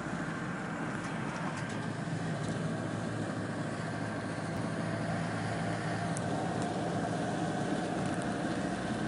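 A van driving at a steady speed, heard from inside the cab: a constant low engine drone with tyre and road noise over it.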